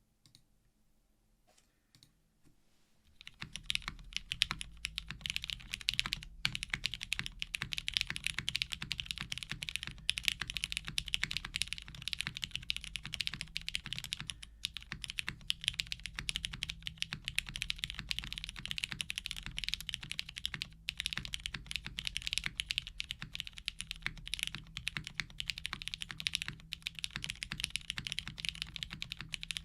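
Fast, continuous typing on a Calliope custom mechanical keyboard with lubed 67g Cherry MX Black linear switches (TX films, GS2 lube), a polypropylene plate and GMK keycaps. A couple of faint key taps come first, then steady rapid keystrokes start about three seconds in, broken by a few short pauses.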